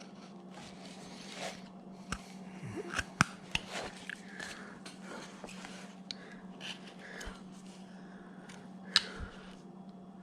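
Carving knife paring wood by hand: a series of small crisp cuts and scrapes at irregular intervals, the sharpest about three seconds in and again near nine seconds. A steady low hum runs underneath.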